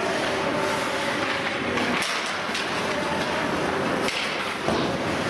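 Steady din of a hockey game in a rink, with a sharp knock about two seconds in and another about four seconds in.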